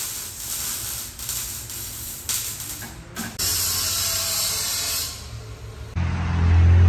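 Hissing and clattering workshop noise, then about six seconds in the exhaust of a 2012 Audi A7 with its rear mufflers deleted comes in loud with a deep, low note.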